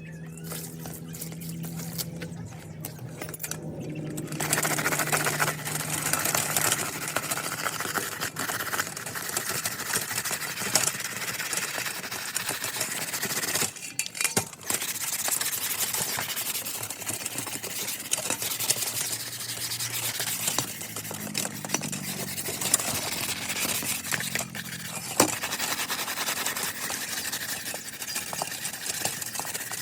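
Continuous scrubbing and rubbing on the plastic of a dirty Dell keyboard during cleaning, with a short break about halfway through. A low steady hum comes first and stops about four seconds in, when the scrubbing starts.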